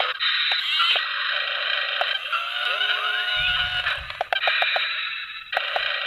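A toy RC excavator's small electric motors and gears whirring, with a rising whine in the middle and a quick run of clicks about four seconds in.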